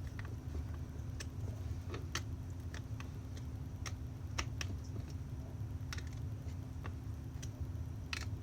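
Irregular light clicks and taps of small metal and plastic cup-turner parts and screws being handled and fitted by hand, over a steady low hum.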